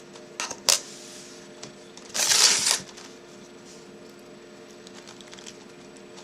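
Handling of the picked euro cylinder lock and picks: two sharp little clicks, then a brief rustling scrape about two seconds in, over a faint steady hum.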